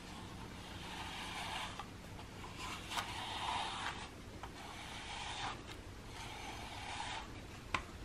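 A slicker brush drawn through a cat's fur in scratchy rasping strokes, about one every second and a half, with a sharp click near the end.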